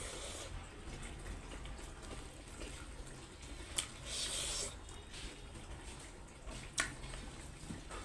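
Wet chewing and mouth sounds of a person eating rice and pork curry by hand, with two sharp smacks and a brief hiss as a handful goes into the mouth about four seconds in. A low steady hum lies underneath.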